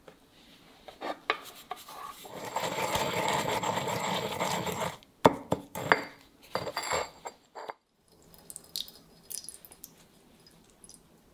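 Stone pestle grinding garlic cloves and salt in a stone mortar, a steady gritty grinding for about three seconds, followed by a run of sharp knocks of the pestle against the mortar. Faint light clinks near the end.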